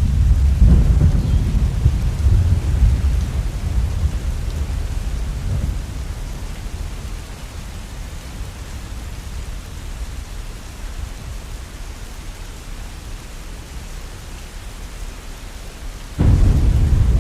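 Steady rain with thunder. A low rumble of thunder dies away over the first several seconds, leaving the even hiss of rain. Near the end a new, sudden loud crack of thunder breaks in.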